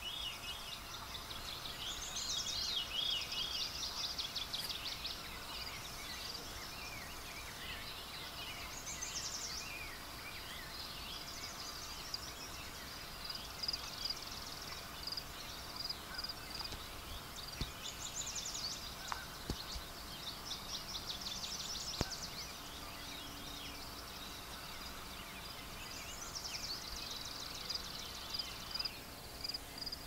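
Dawn chorus: several songbirds singing at once, overlapping trills and warbled phrases, with a high repeated note running underneath.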